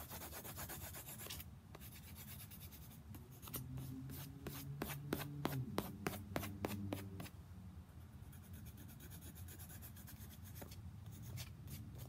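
Green marker scribbling quickly back and forth on paper laid on a board, coloring in an area. It comes in a few runs of rapid strokes with short pauses between them.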